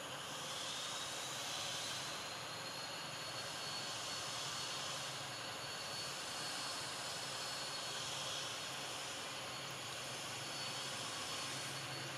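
Steady outdoor background hiss with a thin, high, steady whine that rises in pitch over the first couple of seconds and then holds.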